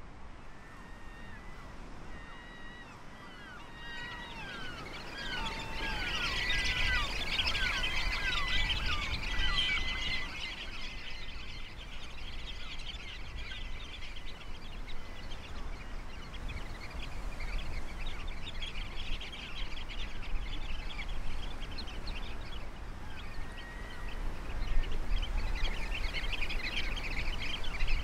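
A flock of shorebirds calling: many short, falling chirps overlap, thickest in the first third and again near the end, over a low, steady rumble.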